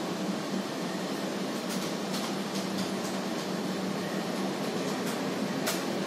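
Steady droning hum with a hiss under it, broken by a few faint, short high clicks about two seconds in and again near the end.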